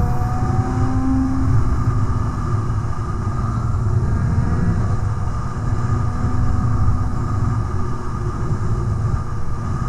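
Motorcycle engine running at a steady road speed, its pitch climbing slightly near the start and then holding level, under heavy wind rumble on the microphone.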